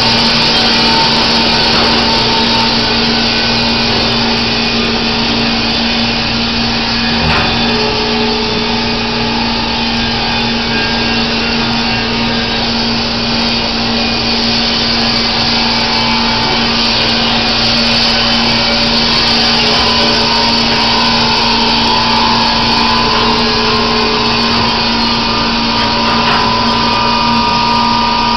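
Baker Products Super Streak band sawmill running and cutting through a white oak log, a loud, steady machine noise with a constant low hum. A higher whine comes in about two-thirds of the way through.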